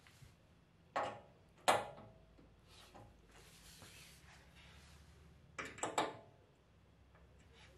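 Hand tools knocking and clicking during the final tightening of a car's side skirt bolts: two sharp knocks in the first two seconds, then a quick run of clicks about six seconds in.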